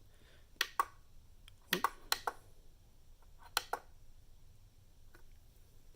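Sharp plastic clicks of buttons being pressed on an AC Infinity fan controller, mostly in quick pairs, about four pairs in the first four seconds.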